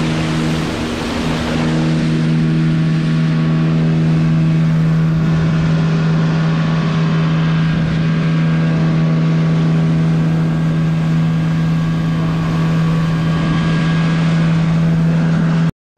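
Boat's outboard motor running at a steady speed under way, over a rush of wind and water; the sound cuts out abruptly for a moment near the end.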